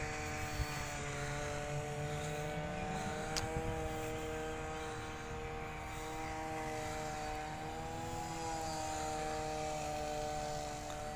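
A steady engine drone made of several held tones, wavering slightly in pitch about eight seconds in, over a low rumble.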